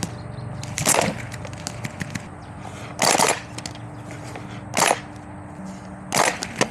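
Airsoft gun firing four short bursts, about a second or two apart, each a brief rattle of shots.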